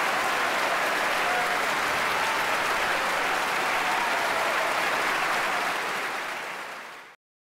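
Large audience applauding steadily, fading out and then cutting off abruptly shortly before the end.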